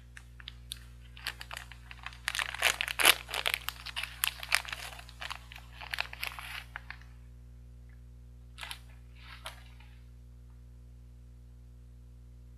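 Plastic ice cream bar wrapper being torn open and peeled off, crinkling and crackling densely for several seconds, then two short rustles a couple of seconds later.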